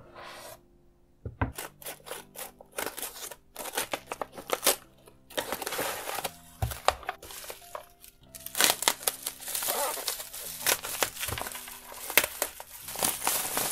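Plastic bubble wrap and a paper padded envelope crinkling and rustling in irregular handling noise as a package is pulled out and unwrapped. Near the end the plastic wrap is cut with scissors. Background music plays underneath.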